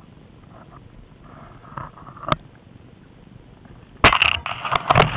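Rustling and knocking of the camera being handled, starting suddenly and loud about four seconds in, after a few faint knocks and one sharp click.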